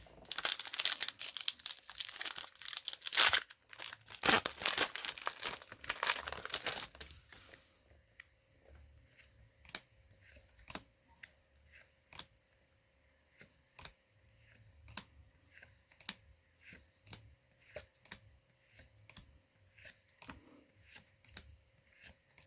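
A Magic: The Gathering booster pack's foil wrapper is torn open and crinkled for about seven seconds. Then the trading cards are flicked through one at a time, with a light click roughly every second.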